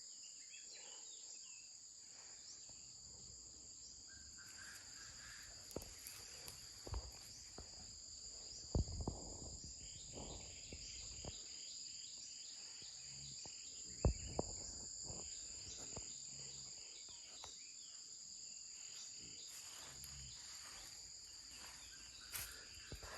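Steady high-pitched chorus of insects shrilling without a break, with a few sharp knocks and clatters from handling things, the loudest about nine and fourteen seconds in.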